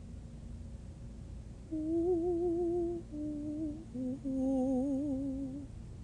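A woman's spontaneous, wordless humming: starting about two seconds in, a few held notes that waver slightly and step down in pitch, stopping shortly before the end.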